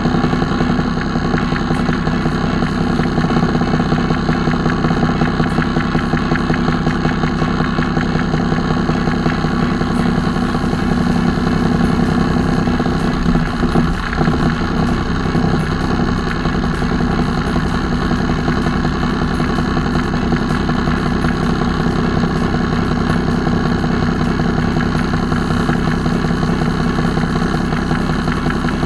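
Cummins M11 straight-six diesel in a Freightliner FLD112 truck idling steadily.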